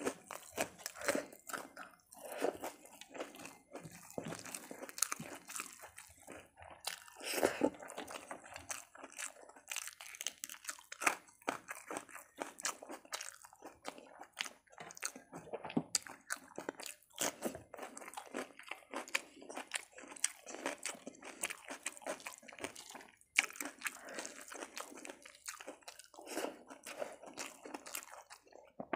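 Close-miked eating: repeated crunching and chewing in an irregular stream, with wet sounds of fingers mixing rice and dal on a metal plate.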